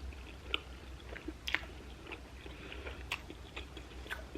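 Close-miked chewing of a cheeseburger slider: soft wet mouth clicks, with a couple of sharper smacks about a second and a half and three seconds in.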